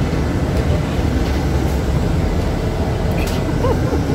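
Steady low rumble inside a moving city bus: engine and road noise heard from the passenger seats.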